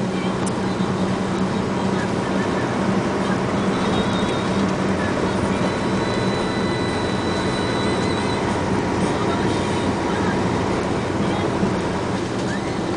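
A vehicle driving steadily along a road, heard from on board: constant engine hum mixed with road and wind noise.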